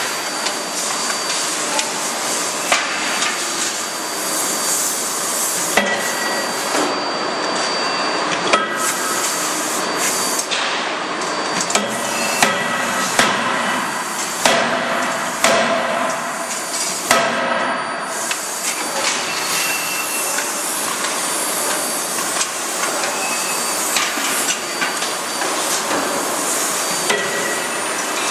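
CNC hydraulic die forging hammer (C92K-31.5KJ) striking connecting-rod forgings: a string of sharp hammer blows, irregularly spaced a second or a few seconds apart, over a constant loud hiss of shop noise.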